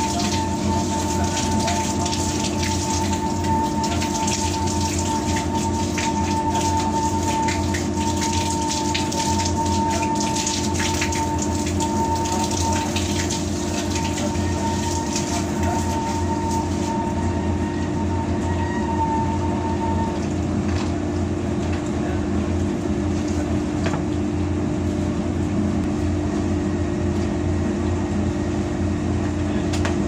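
Water running through an industrial washing machine's plumbing, over the steady hum of laundry machinery. A thin steady tone in the sound stops about two-thirds of the way through.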